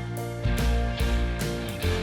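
Background music: a strummed guitar tune with a steady beat.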